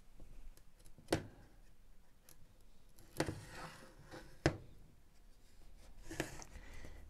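Hard plastic housing parts of a Makita DX01 dust extractor being handled and fitted together by hand: a handful of sharp clicks and knocks, two of them followed by a brief scrape.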